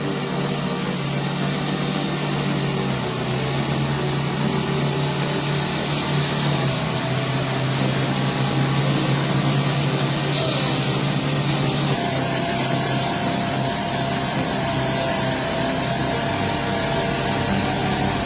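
Engine of a heavy tree-handling machine running steadily under a spread of hiss, with a faint steady whine joining in after about twelve seconds.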